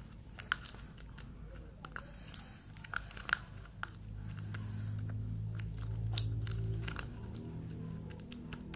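Glue-and-detergent slime being squeezed and worked by hand: scattered sticky clicks and small pops.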